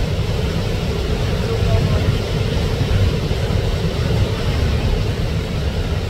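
Waterfall roaring: a steady rushing noise with a deep rumble, swelling just before and then holding level.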